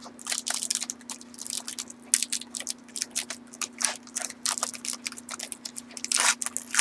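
Foil trading-card pack wrapper being torn open and crinkled, an irregular run of sharp crackles.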